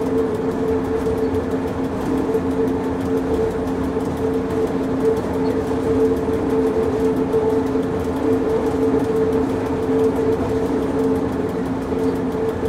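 Pilatus Railway electric rack railcar running downhill on its cog track, heard from inside the car: a steady rumble and running noise with two held humming tones throughout.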